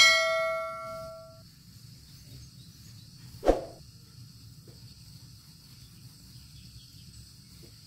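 A notification-bell 'ding' sound effect, rung once and fading out over about a second and a half, following mouse-click effects as part of a subscribe-button animation. About three and a half seconds in there is a single short thump.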